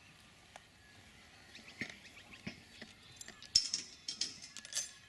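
Plastic bag crinkling and rustling in short, irregular bursts, with one sharp knock about three and a half seconds in.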